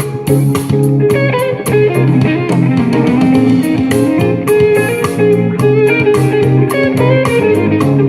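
Instrumental pop music with guitar, bass and a steady beat, played back through a BS 39B Bluetooth speaker.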